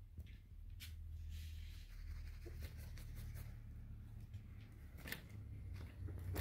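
Light scratching and rustling as a baby red squirrel's claws grip and climb curtain fabric, with a few sharp clicks, the clearest about a second in and around five seconds in, over a low steady hum.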